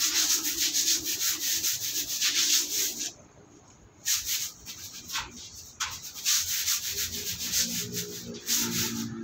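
Brush scrubbing a dog cage with soap: quick rasping strokes, several a second, that pause for about a second around three seconds in and then go on in shorter bursts.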